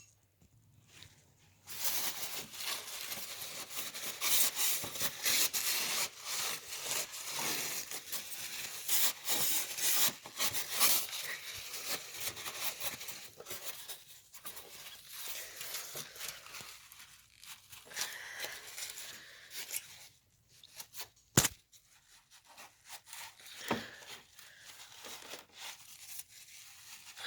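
Scraping and rubbing as dirt is cleared out of the base pan of a window air conditioner, busy and uneven, thinning out later on. Near the end comes one sharp knock.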